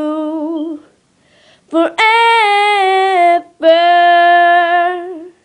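A boy singing unaccompanied in long, wavering held notes: one note ends under a second in, and after a short pause he sings two long notes, the first higher and stepping down in pitch.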